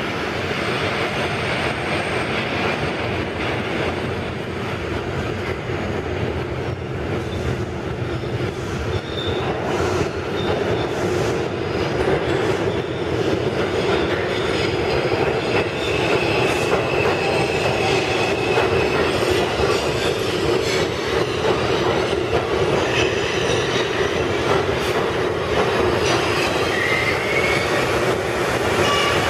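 New York City Subway 5 train running into an underground station and slowing to a stop: a steady rumble of wheels on rails that grows louder about halfway through, with high wheel and brake squeals in the second half.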